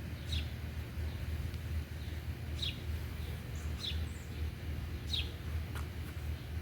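A bird chirping outside, four short downward chirps a second or so apart, over a steady low rumble and an even hiss.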